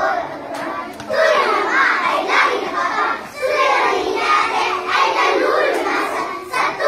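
A group of young children reciting a poem in unison, speaking in chanted phrases of two or three seconds with brief pauses between them.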